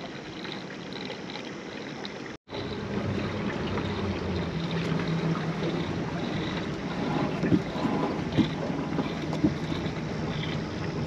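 Small boat drifting on the water, with wind on the microphone and water noise against the hull, and a few light knocks in the second half.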